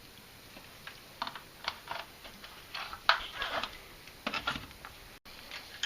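Irregular light clicks and metallic clinks of hand tools being handled, as a wrench is picked up and fitted, with the loudest clink about three seconds in.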